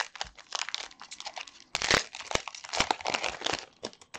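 Foil wrapper of a Pokémon trading-card booster pack crinkling and tearing as it is worked open by hand: a dense run of irregular crackles, loudest about two seconds in.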